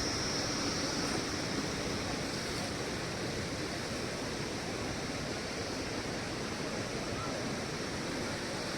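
Steady rush of flowing water, like a mountain stream or river running nearby.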